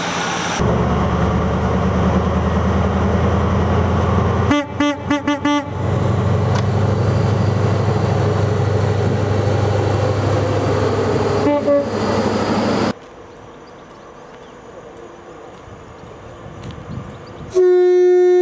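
Train horns. A train runs close by with a loud, steady low rumble, and its horn gives a quick run of short toots and later one more short toot. After an abrupt change to a quieter stretch, a horn sounds one loud blast of about a second near the end.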